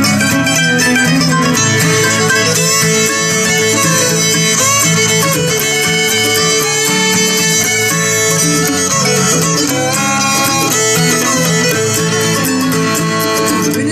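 Live acoustic bluegrass band playing an instrumental break, a fiddle taking the melody over acoustic guitar.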